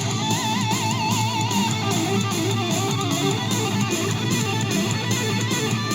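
Guitar-driven rock music played back through an Ultimate Ears MiniRoll, a small Bluetooth speaker, at 60% volume, with little deep bass. A wavering held note sounds near the start.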